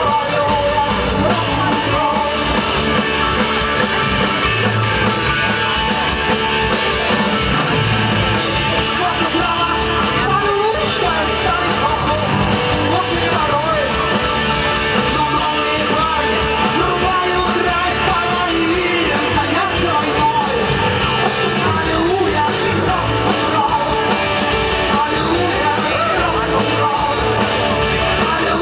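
Rock-and-roll song played by a band with a singer, guitar and a steady beat.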